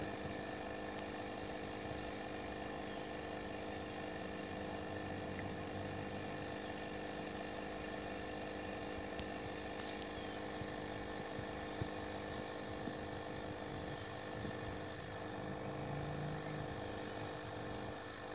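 Steady mechanical hum of a running motor, holding several even tones with a low rumble beneath, unchanging throughout.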